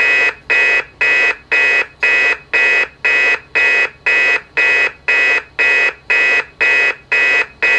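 Amseco VSD-208 voice driver's alarm tone played through a Simplex LifeAlarm speaker turned down to 0.25 W: a loud pulsed beep about twice a second, evenly repeated.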